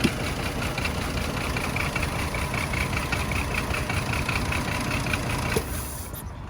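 Chevrolet Trailblazer engine idling with a misfire on cylinders 3 and 5, which the owners put down to spark plugs or a bad ignition coil; a click at the start, and the engine shuts off near the end.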